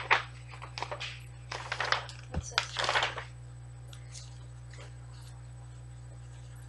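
Rustling and crinkling of a gift bag and paper being rummaged through and handled, in a cluster of irregular crackles over the first three seconds. After that only a low steady hum remains.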